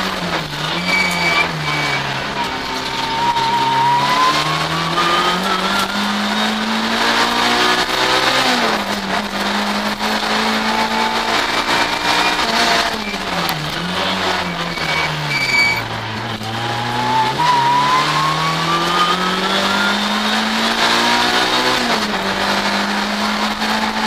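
A race car's engine heard from inside the cockpit, accelerating hard with its pitch climbing for several seconds at a time, then dropping off for gear changes and braking into the slalom's chicanes, over and over. Brief high tyre squeals come near the start and again about fifteen seconds in.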